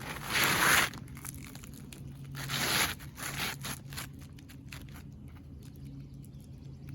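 Gritty scraping of an asphalt roof shingle being slid back into place on a three-tab roof: two strong scrapes, one right at the start and one about two and a half seconds in, followed by a few lighter ones.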